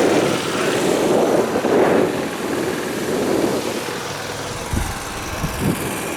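Waterfall: a steady rush of falling water that eases off a little after about two seconds, with a few low thumps near the end.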